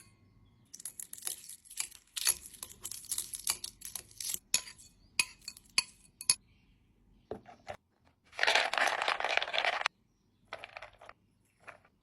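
Dog chewing watermelon: a run of crisp, quick crunching clicks for about five seconds, then after a short pause a louder, continuous rough crunching noise lasting about a second and a half, with a few scattered crunches after.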